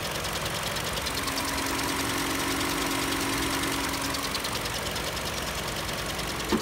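Toyota car engine idling steadily under the open hood. A steady hum joins in for a few seconds in the middle, and there is a brief click near the end.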